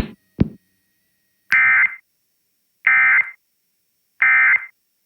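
Emergency Alert System end-of-message tones: three short, buzzy digital data bursts about a second and a half apart, signalling that the alert has ended. A sharp click comes just before the first burst.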